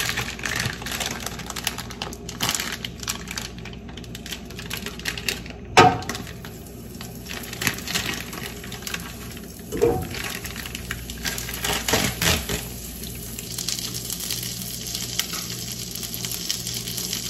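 Kitchen handling sounds: a plastic bag rustling and utensils and bowls clicking, with a few sharper knocks on the counter about 6, 10 and 12 seconds in, over a steady low hum.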